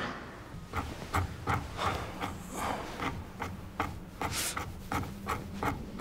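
Rhythmic rasping strokes, about three a second, like a daikon radish being grated: the 'strange noise' heard at night in the hospital ward.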